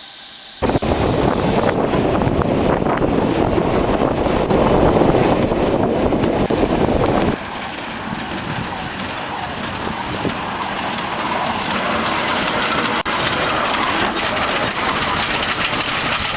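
Saxon IVK narrow-gauge steam locomotive: a loud rush of steam starts suddenly about half a second in and runs steadily for several seconds. Then a quieter, steady hiss and rumble from the locomotive follows.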